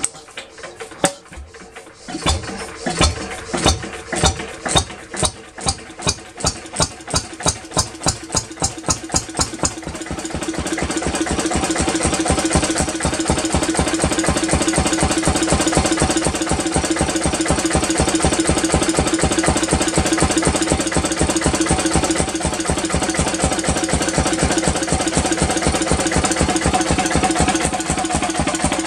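1937 Lister CS 3.5 hp single-cylinder cold-start diesel stationary engine starting up. Its firing strokes come faster and faster over the first several seconds, then it settles about ten seconds in into an even, steady beat at its governed running speed of about 650 rpm.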